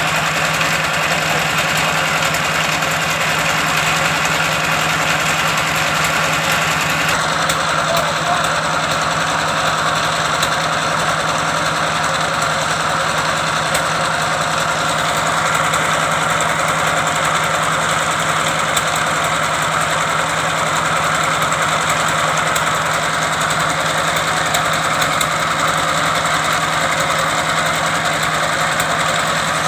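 Engine of a wood-cutting machine running steadily, with a constant hum and a slight change in tone about seven seconds in.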